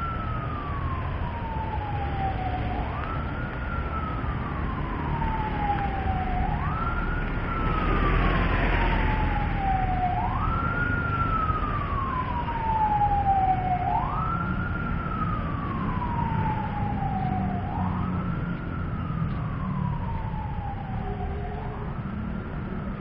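A siren wailing from somewhere off-picture. Each cycle jumps quickly up in pitch and then slides slowly down, repeating about every three to four seconds, six rises in all.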